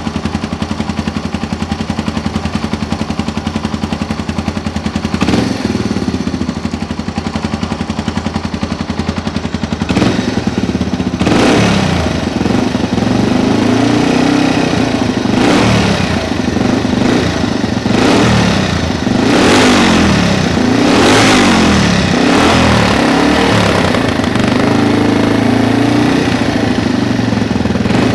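Yamaha TW200's single-cylinder four-stroke engine running through an FMF aftermarket muffler, idling steadily at first. From about ten seconds in it is revved in repeated throttle blips that rise and fall, then it settles back to a steadier run.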